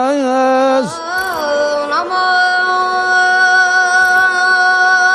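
A man singing a line of an Azerbaijani song, the phrase ending about a second in; after a short rising phrase, a single long note with several steady overtones is held for the rest.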